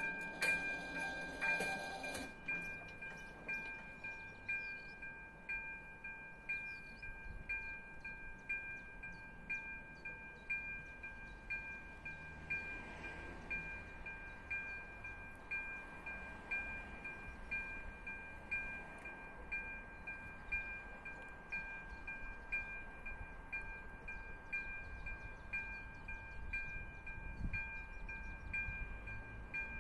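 Level-crossing electronic warning bell ringing in even, repeated dings, about two a second: the crossing's alarm that a train is approaching while the barriers are down and the red lights flash. A short, louder burst of noise sounds in the first two seconds.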